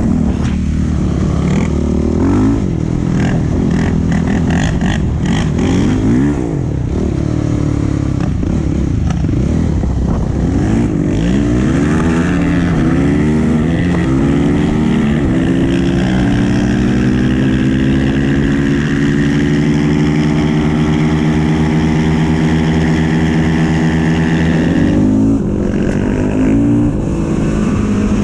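Yamaha YFZ450 quad's single-cylinder four-stroke engine revving up and down repeatedly for about the first half, then held at a steady, slowly rising pitch under sustained throttle, with a brief lift-off near the end.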